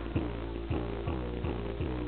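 A hip-hop song playing through a car's amplified stereo, with a heavy beat thumping about twice a second.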